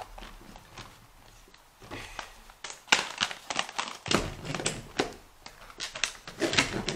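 Hard plastic toy playset parts knocking and clicking against each other as they are handled and pushed together while being snapped into place. There are a few light taps early, then a run of sharper clicks and knocks from about three seconds in.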